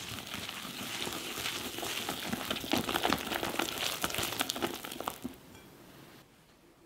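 A whisk stirring flour into thick chocolate cupcake batter in a glass bowl: a wet, squishy scraping with many quick clicks of the wires against the glass. It stops about five seconds in.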